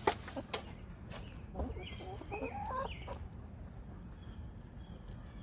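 Domestic chickens clucking, with a run of short, wavering clucks about two to three seconds in.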